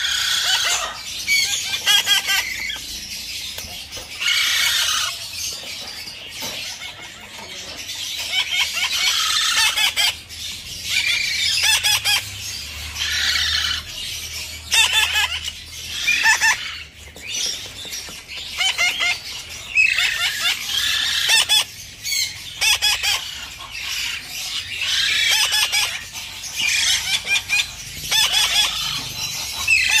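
Parakeet chicks giving harsh, rapidly pulsing begging calls, one call after another with short gaps between, as they are hand-fed with a syringe.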